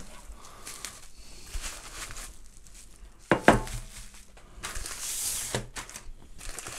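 Plastic packaging and bubble wrap being handled on a tabletop: crinkling and rustling with light knocks, and one sharp knock about three and a half seconds in. The rustling is loudest about five seconds in.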